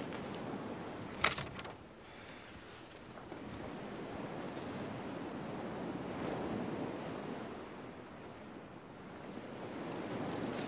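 Soft, steady rushing noise that slowly swells and fades, with a short rustle about a second in.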